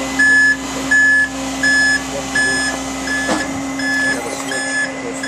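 Warning beeper on an aerial ladder fire truck with its outriggers deployed, sounding a high beep about every three-quarters of a second and getting fainter toward the end, over a steady low hum from the truck.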